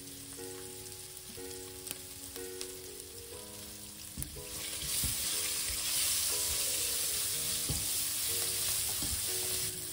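Chopped onions sizzling in hot oil in a stainless steel pot, stirred with a silicone spatula. The sizzle gets much louder about halfway through, once the stirring starts.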